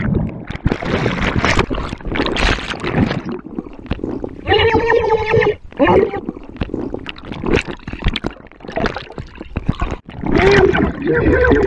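Water sloshing and bubbling, with a man's singing voice holding a drawn-out note through it twice: once about five seconds in and again near the end.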